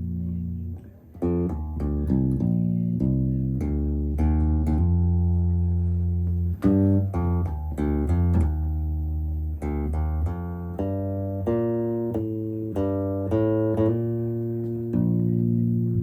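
Solo electric bass played through an amp: long held low notes alternate with quick runs of separately plucked higher notes.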